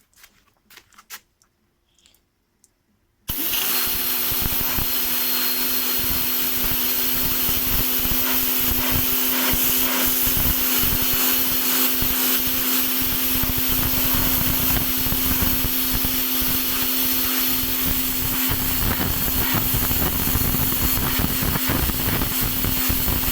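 Parkside PHD 110 D1 electric pressure washer starting suddenly about three seconds in, then running steadily: a motor-and-pump hum under the loud hiss of the water jet.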